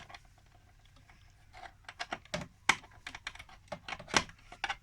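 Irregular light clicks and taps from hands working at the USB outlet, starting about a second and a half in.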